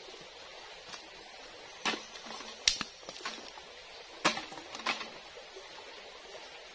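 Dry bamboo sticks knocking and clattering: about five sharp clacks over a few seconds, against a faint steady hiss of running water.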